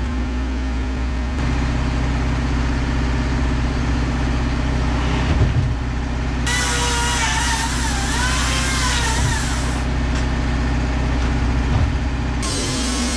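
Wood-Mizer LT15 Wide sawmill's engine running steadily between cuts. In the middle a hiss with a wavering, whistle-like whine joins it for a few seconds, and another hiss comes in near the end.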